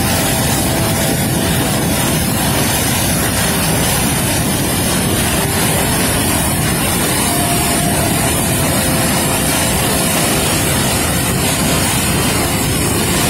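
Tall waterfall pouring down a rocky cliff: a loud, steady rush of falling water.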